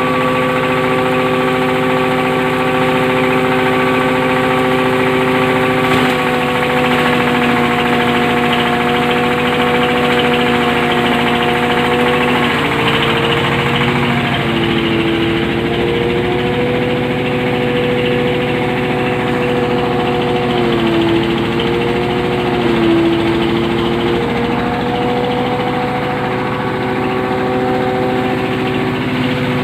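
Hammer mill feed grinder running steadily with a loud droning hum, its pitch dipping briefly several times, around a fifth of the way in, near the middle and about three-quarters through.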